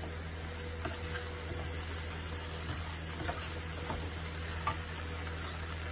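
Potatoes and yardlong beans frying gently in oil in a kadai while a spoon stirs them, with a few light ticks of the spoon against the pan.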